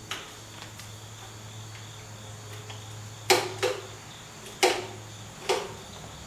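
Hand tools clinking against metal while nuts are worked loose on the car's front suspension: a few sharp metallic clinks starting about three seconds in, over a steady low hum.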